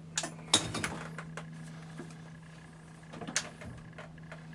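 A few light metallic clicks and clinks from a milling machine's handles and tooling being worked, over a steady low hum.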